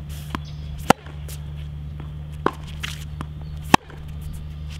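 Tennis rally on a hard court: two loud, sharp racquet-on-ball forehand hits about three seconds apart, with a fainter hit from the far side of the court between them. Footsteps and shoe scuffs on the court and a steady low hum run underneath.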